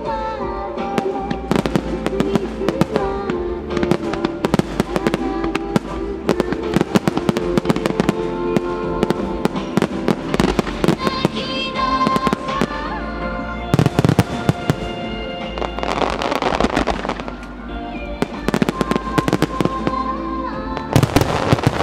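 Aerial firework shells bursting one after another over music, with crackling volleys that grow densest about two-thirds of the way through and again near the end.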